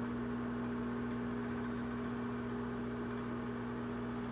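Microwave oven running, a steady hum.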